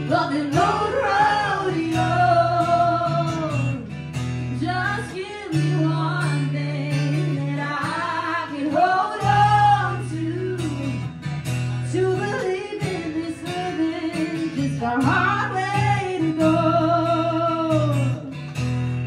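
A woman singing a melody with long held notes over a strummed acoustic guitar, in a live duo performance.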